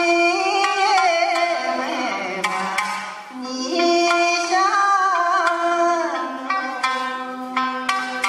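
Background music: a wavering sung melody over a plucked string instrument.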